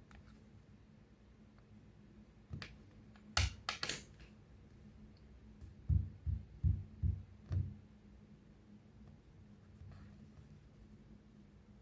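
Handling of a Samsung smartphone: a few sharp clicks, then five soft low thumps about a third of a second apart, as its side buttons are pressed.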